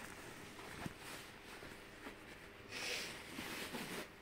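Faint handling noise of a laptop being slid into a fabric bag, with a short rustling scrape about three seconds in.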